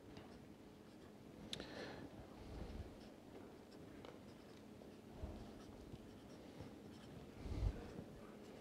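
Felt-tip whiteboard marker writing a column of numbers on a white board, with faint strokes and taps of the tip. There is a low thump near the end.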